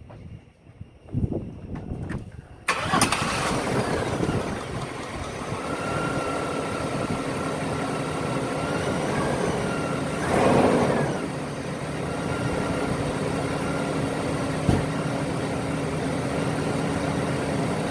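Chevy Blazer engine started on a freshly fitted battery: after a few faint thumps it catches about three seconds in and settles into a steady idle, swelling briefly once near the middle.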